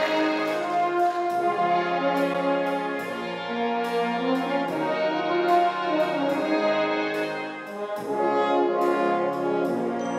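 Concert wind band playing a 1960s pop medley: held brass and woodwind chords over a drum-kit beat.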